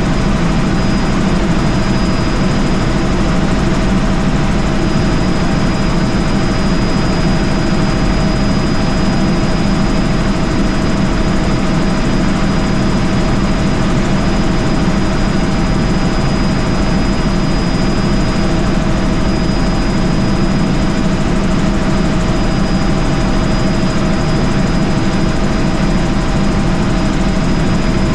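Helicopter in flight heard from inside the cabin: a loud, unchanging drone of turbine and rotor with a thin, steady high whine over it.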